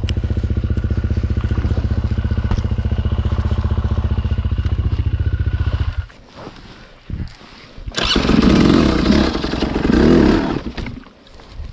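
Dirt bike engine idling with an even, quick beat, cutting out abruptly about six seconds in. After a short quiet gap with a few clicks, a loud, rough burst of noise lasts about two and a half seconds near the end.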